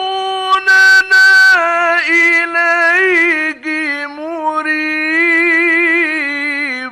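A male Quran reciter in the melodic Egyptian mujawwad style, drawing out the end of a verse in long, ornamented held notes. There is a burst of noise about a second in, and the voice slides down and cuts off at the very end.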